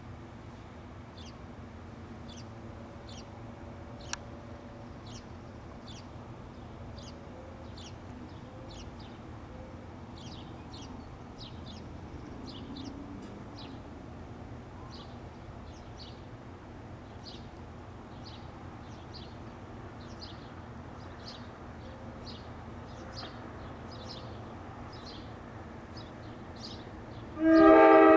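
A small bird chirps the same short high note over and over, about once every 0.7 seconds, over a steady low hum. About 27 seconds in, the NJ Transit ALP-46 electric locomotive sounds its horn, a loud sustained chord.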